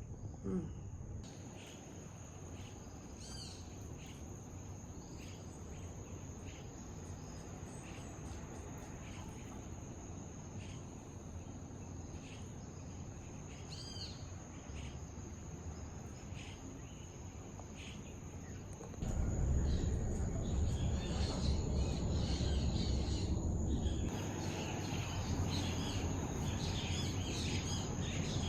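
Outdoor insects keep up a steady high-pitched drone, with a few bird chirps now and then. About two-thirds of the way through it gets louder: a low rumble comes in and the bird chirping gets busier.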